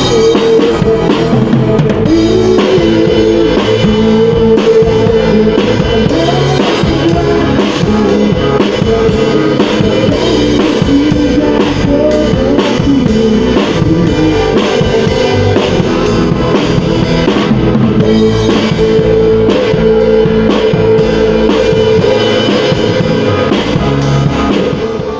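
A rock band playing loudly: a drum kit keeping a steady beat under guitar, with a held melody line and some singing.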